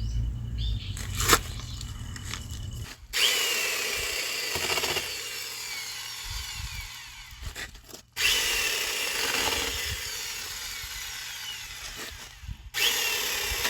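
Electric chainsaw cutting through a log into firewood lengths, in three stretches that start and stop abruptly, the first about three seconds in after a few light knocks.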